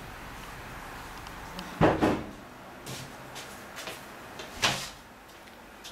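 Knocks and bangs of household handling, like a door or cupboard: two loud knocks close together about two seconds in, a few lighter clicks, and another loud knock a little past the middle.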